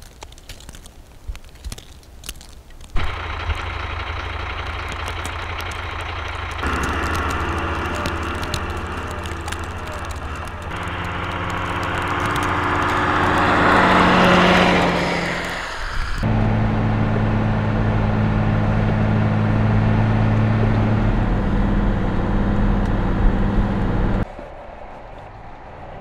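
Vehicle engines running steadily across a string of short clips that cut abruptly from one to the next, with one rushing swell that rises and fades about halfway through. The first few seconds hold only scattered clicks and crunches.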